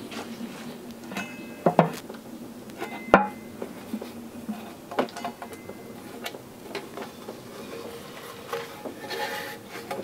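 Cast aluminium oil pan of a Honda K20 engine being worked loose and lifted off the block by hand. Several sharp metal knocks and clinks, with a few faint squeaks as the pan separates.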